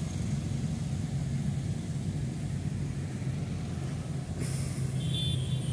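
Motor vehicle engine running steadily with a low hum. A hiss starts about four seconds in.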